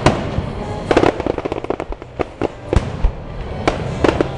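Aerial fireworks shells bursting overhead: a sharp boom at the start, another about a second in followed by rapid crackling, and more booms near the end.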